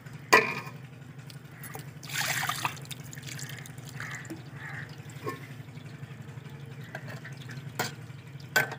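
Water sloshing and dripping as boiled vermicelli is rinsed in cold water in a metal pan, with a sharp knock about a third of a second in, a short splashing rush about two seconds in, and a steel ladle clinking against the pan near the end.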